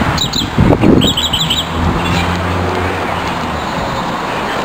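Outdoor lakeside ambience: a bird gives a quick run of high chirps about a second in, over a couple of low gusts on the microphone. Then comes the steady low hum of a vehicle engine.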